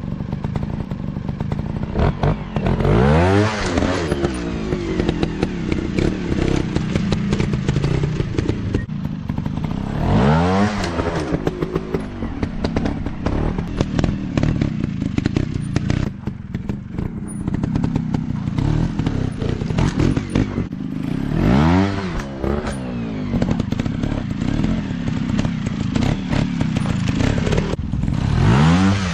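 Dirt bike engine running under load, revving up in rising sweeps about four times, with clattering and knocks throughout.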